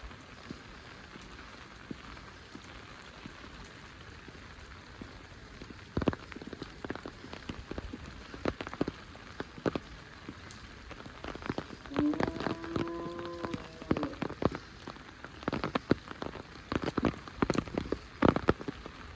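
Heavy rain falling steadily. From about six seconds in, large drops start hitting close by with sharp, loud splats. Near the middle a single short, pitched call rises above the rain for about a second and a half.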